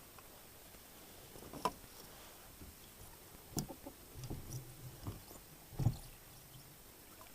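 Scattered knocks and light clatter of fishing rigs and a paddle being handled in an inflatable boat, with the loudest knock near the end.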